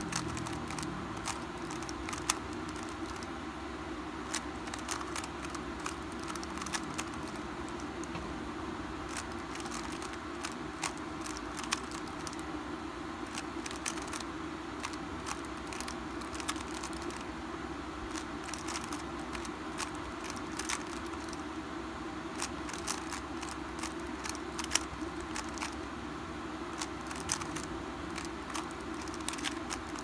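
Metallized 3x3 Rubik's cube being turned by hand: irregular clicking and clacking of its layers as sequences of moves run one after another, over a steady low background hum.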